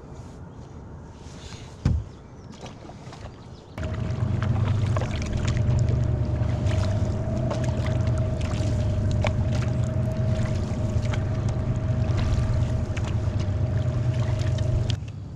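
A small motor on the canoe running steadily with a low hum and a steady whine; it switches on abruptly about four seconds in and cuts off near the end. A single thump sounds about two seconds in.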